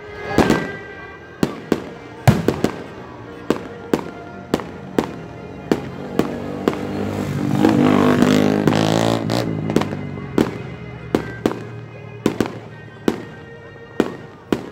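Fireworks going off: a steady string of sharp bangs and pops, about one or two a second, as shells are launched and burst overhead.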